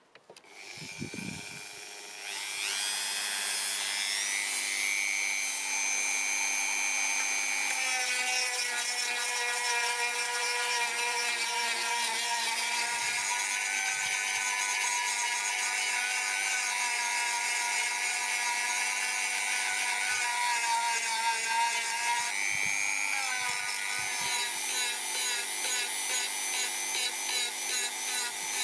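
Handheld rotary tool switched on, its motor spinning up to a steady high whine within about two seconds. Its sanding drum then grinds away at a knife handle made of colored pencils set in epoxy resin, the whine wavering as the drum is pressed against the work.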